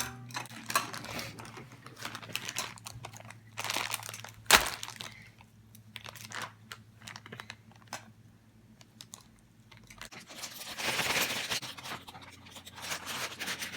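Packaging of a set of toy bugs being torn open and crinkled, with scattered crackles and clicks. There is one sharp click about four and a half seconds in and a louder stretch of rustling near the end.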